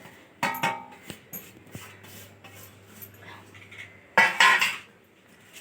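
Kitchen dishes and utensils clinking as ingredients are handled, with a louder clatter about four seconds in.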